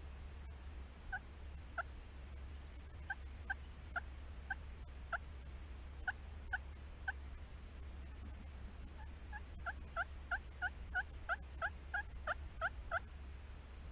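Wild turkeys yelping: single yelps spaced out over the first several seconds, then a quicker run of about a dozen yelps near the end.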